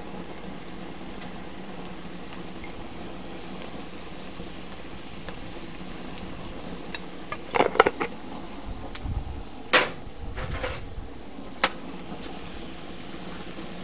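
Minced meat and onions sizzling steadily on a hot griddle plate over a gas grill. A few short, sharp clicks and knocks break in around the middle.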